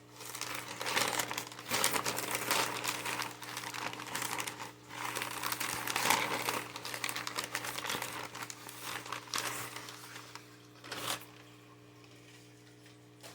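Packing material crinkling and rustling as a shipped potted plant is unwrapped by hand, in irregular handfuls that die away about eleven seconds in.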